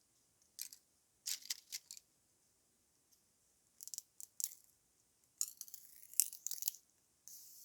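Barley straw crackling and crunching in short irregular bursts of crisp, high-pitched rustle, five or six times, with quiet gaps between.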